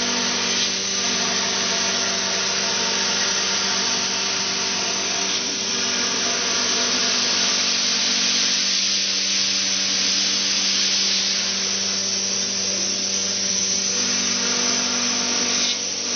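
Industrial CNC machine running, a steady motor hum with several held tones under a dense hiss of cutting, shifting slightly a few times.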